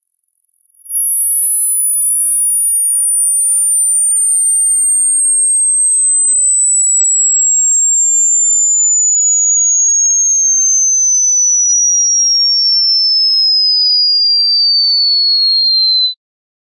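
Pure sine test tone for a high-frequency hearing test, sweeping slowly and steadily down in pitch from very high to high over about fifteen seconds, so that the listener can find the highest pitch they can hear. It fades in about a second in and cuts off sharply near the end.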